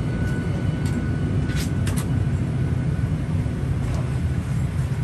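Steady low rumble heard from inside a vehicle, with a few faint short clicks about a second or two in.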